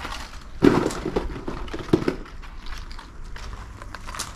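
Handling noise from unpacking fishing lures: irregular rustling of packaging and small clicks, the strongest about half a second in.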